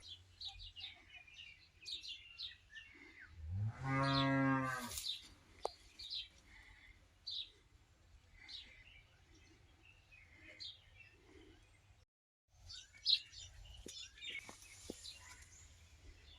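A cow moos once, a long low call lasting about a second and a half, over scattered high chirping of small birds. The sound cuts out completely for a moment about twelve seconds in.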